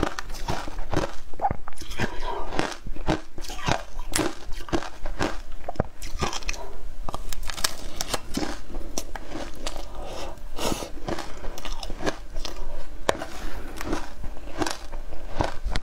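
Shaved ice dusted with matcha and milk powder being bitten and chewed: a dense, irregular run of short crisp crunches.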